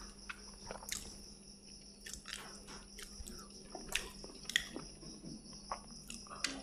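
A person chewing fish: soft, wet mouth smacks and clicks, scattered every second or so.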